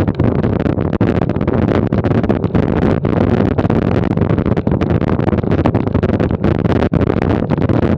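Bicycle riding over cobblestones on a steep climb, heard through a camera fixed to the bike: a loud, continuous rattle and rumble of tyres and frame on the cobbles.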